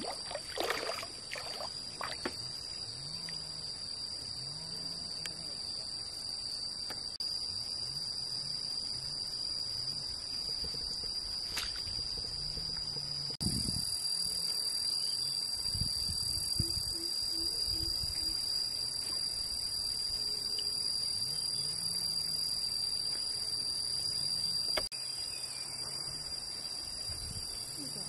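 Steady chorus of insects around the pond, a constant high-pitched drone, with a few low sloshes of water a little past the middle as the pond is waded.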